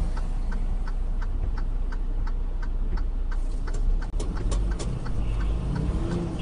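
Inside a semi-truck cab: steady low engine and road rumble with a regular clicking, about two to three clicks a second, and a few sharper clicks about four seconds in.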